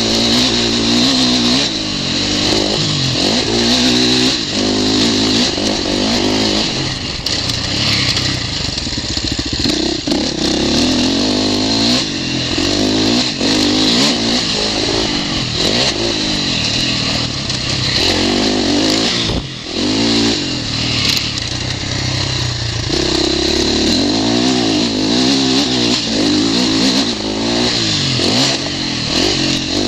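KTM 450 single-cylinder four-stroke motocross bike engine, heard on board, revving up and falling back over and over as the rider accelerates along a dirt track. The throttle closes briefly about twenty seconds in.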